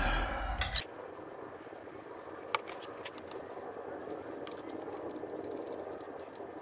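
Soldering work on speaker wire at a bench: a few light clicks and taps as the iron and wire are handled at a helping-hands clamp, over a steady background hum. A short bit of voice at the very start cuts off under a second in.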